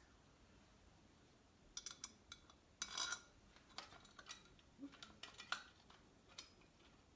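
Quiet at first, then a run of light metallic clinks and taps starting about two seconds in: small metal engine parts and bolts knocking together as they are handled during reed block installation.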